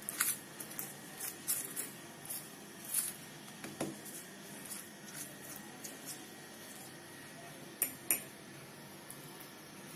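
A steel spoon scraping and tapping while spreading chutney over a chapati on a flat tawa, a string of light clicks for the first few seconds that thin out; two sharp clinks close together about eight seconds in.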